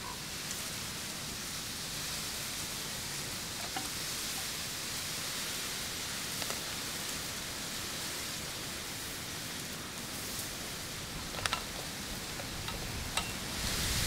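Steady background hiss, with a few faint short clicks scattered through it.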